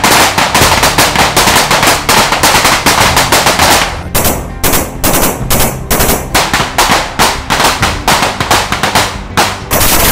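Heavy automatic rifle fire from several weapons: a continuous roll of overlapping shots that thins after about four seconds into short bursts and single shots, with a brief break near the end.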